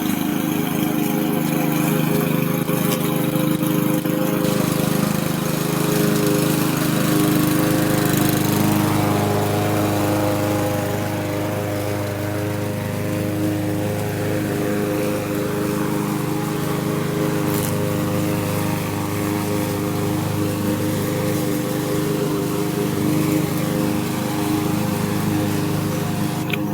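Power lawn mower running steadily at one even pitch while cutting grass.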